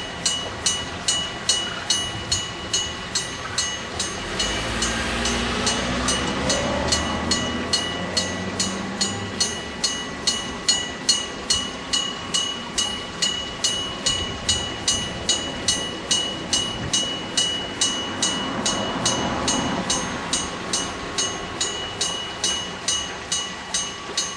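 Electric bell of an old-style Japanese railway crossing signal ringing steadily, about two strikes a second, warning that a train is coming. A train rumbles over the crossing about four to ten seconds in, under the bell.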